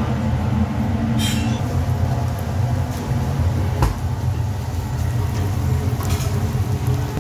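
Steady low mechanical hum and rumble of kitchen machinery, with a few brief clicks from the pan being handled on the stove grate.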